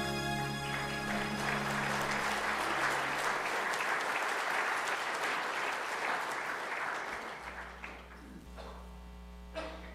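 Congregation applauding as the last held chord of the song's accompaniment fades away. The applause swells, then tapers off about eight seconds in, leaving a low mains hum.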